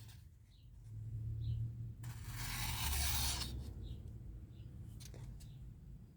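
A folding knife blade slicing through a sheet of paper: one rasping cut about two seconds in, lasting just over a second.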